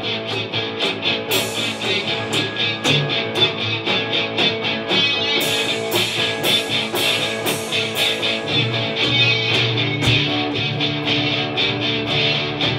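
Instrumental rock played live by two electric guitars and a drum kit, with a steady run of cymbal strokes. Heavier cymbal crashes come in at about a second and a half, and again from about five to eight seconds in.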